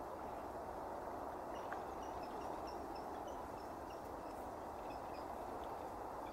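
Great grey shrike singing: a run of short, high notes, about three or four a second, from about a second and a half in until about five seconds in, over a steady low background rumble.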